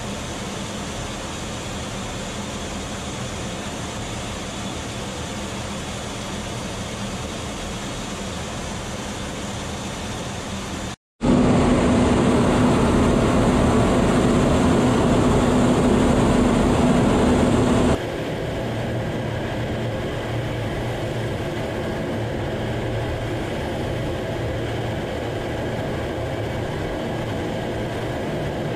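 Steady engine and airflow noise inside an F-15 fighter's cockpit. It cuts out for a moment about eleven seconds in, then comes back louder with a steady low hum for several seconds before dropping to a softer level.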